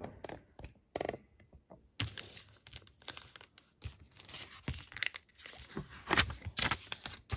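Paper and plastic packaging rustling and crinkling as items are handled, with scattered light clicks and knocks that grow busier after about two seconds.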